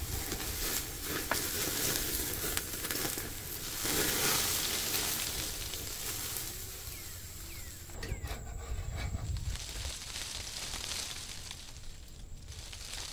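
Pork belly sizzling on the wire grate of a charcoal grill, with a few sharp clicks of metal tongs against the grate. The sizzle is loudest in the first half and dies down later.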